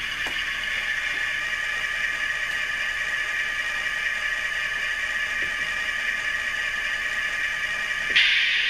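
Sound decoder in an HO-scale Athearn GP-38 model locomotive playing a steady diesel engine idle through a small test speaker, thin and lacking bass. Near the end a louder sound cuts in for about a second.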